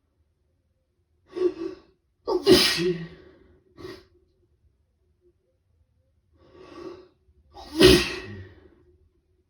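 A person with a head cold sneezing twice, about five seconds apart, each loud sneeze coming just after a shorter build-up breath. It is part of a rapid sneezing fit.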